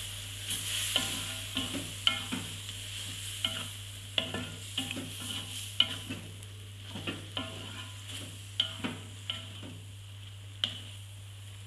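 Stir-frying mustard greens, tofu and egg in a wok: a spatula scraping and knocking against the pan again and again, irregularly, over a steady sizzle.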